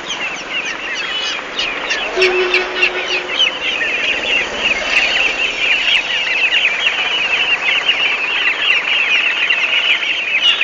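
A large crowd of chicks peeping without pause: many quick, high cheeps that overlap into one continuous chorus.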